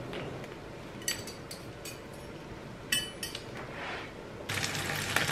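Two light, ringing clinks of tableware set down on a hard counter, about one and three seconds in. Near the end, food starts sizzling as it fries in a pan.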